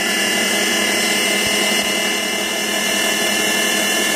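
VonShef baby food maker's blender motor running at full speed with a steady high whine, its blade chopping steamed apple pieces into purée.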